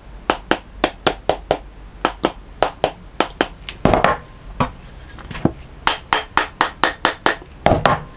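Rubber mallet tapping a new wooden handle into a steel lump hammer head: a quick run of sharp knocks, about three or four a second, with a louder clatter about four seconds in and more rapid taps after it.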